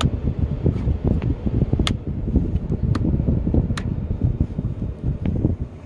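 Dashboard toggle switches clicking about four times as they are flipped, over a steady low rumble.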